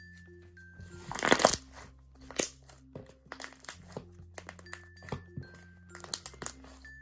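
Homemade glue slime being squished and stretched by hand, giving a run of sharp bubble pops and crackles, the loudest cluster about a second in, over light background music.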